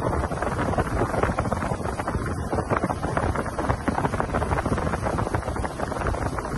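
Wind buffeting the microphone and water rushing past the hull of a small aluminium boat running at speed, a steady, rough rushing noise with no engine note standing out.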